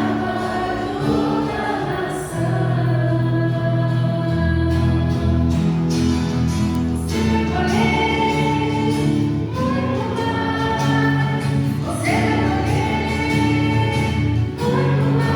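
Gospel music with voices singing together over sustained instrumental chords.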